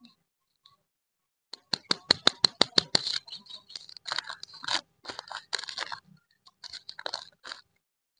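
Lollipop wrapper being unwrapped by hand: a quick run of crisp clicks about a second and a half in, then crackling and crinkling as the wrapper is peeled off the candy.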